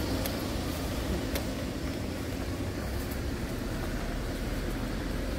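Steady low rumble of street traffic and urban background noise, with a couple of faint ticks as the tent's nylon rain cover is pulled into place.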